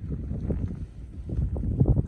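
Wind buffeting the microphone: an irregular, gusting low rumble.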